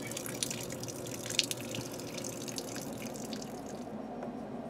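Water pouring and dripping onto wet pavement: coolant draining from the Dodge 440 engine block, with scattered drip ticks. The splashing drops away a little before the end, leaving a low hum.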